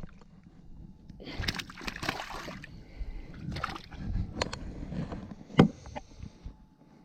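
Water splashing and sloshing, with scattered clicks and one louder knock of handling about halfway through.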